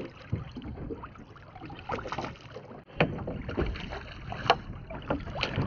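A hooked black bream splashing at the surface beside a small boat, over wind noise, with several sharp knocks and clicks as the fish is lifted aboard.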